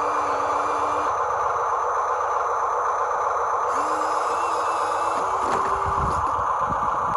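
Small electric motors and gearboxes of radio-controlled construction models whirring steadily. A whining motor tone stops about a second in and comes back just before four seconds, shifting a little in pitch, with a few low knocks near the end.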